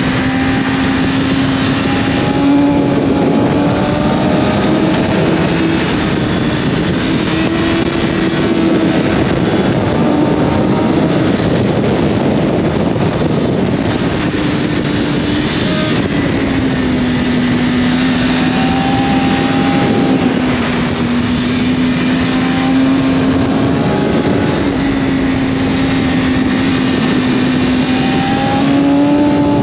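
Sport motorcycle engine running hard at high revs, holding a fairly steady note that climbs and eases a little with the throttle, with a short dip about halfway through. Heavy wind rush on the microphone.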